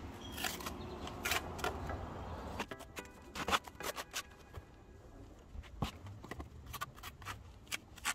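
Steel brick trowel scraping and tapping wet mortar against bricks. A dense stretch of scraping for the first two and a half seconds, then scattered sharp clicks.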